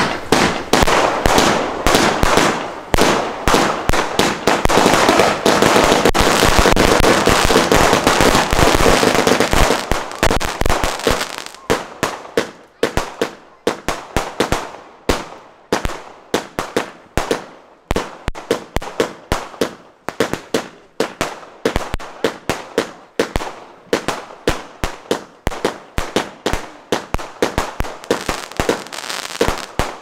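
A multi-shot aerial firework cake firing. For about the first ten seconds it is a dense, almost unbroken crackle of bursts, then it settles into a steady string of sharp bangs, roughly two or three a second.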